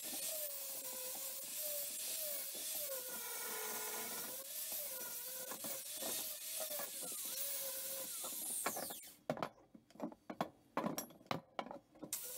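Angle grinder running with a wavering whine, then switched off about three-quarters of the way through and winding down with a falling pitch. A few sharp knocks follow.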